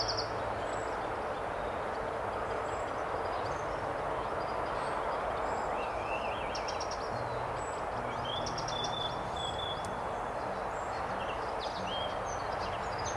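Outdoor riverside ambience: a steady background hiss with a faint low hum, and small birds chirping and trilling now and then.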